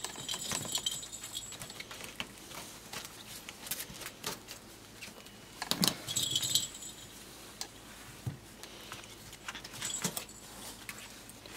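Rustling cloth and small clicks as a corgi puppy scrambles about and is handled, with a few brief bursts of light metallic jingling: near the start, about halfway through and near the end.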